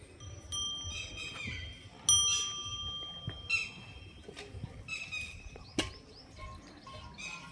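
Birds calling, many short overlapping chirps and some held whistled notes, the loudest call coming about two seconds in.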